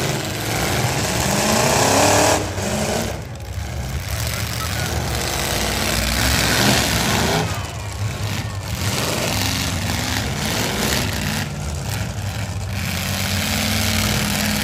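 Full-size V8 pickup truck engines of demolition derby trucks revving hard and easing off, their pitch rising and falling again and again.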